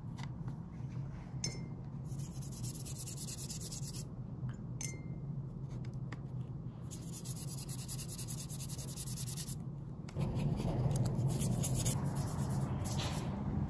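Small watercolor brush stroking wet paint across paper, a soft brushing and rubbing with a few faint ticks, over a steady room hum that gets louder about ten seconds in.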